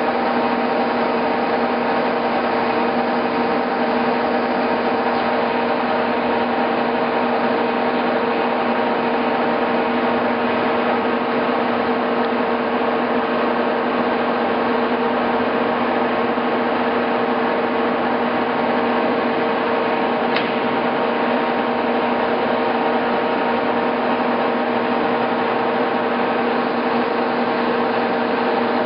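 Monarch model 1610 engine lathe running steadily under power, a constant mechanical hum with a steady whine. There is one faint click about two-thirds of the way through.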